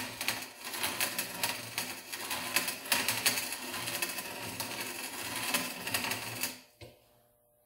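Hand brace turning a hollow auger on the end of a wooden pole, the cutter shaving a round tenon with dense, irregular clicking and crackling. It stops about six and a half seconds in.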